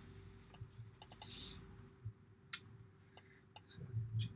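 A few faint, irregularly spaced clicks from a computer mouse and keyboard at a desk, over a low steady hum.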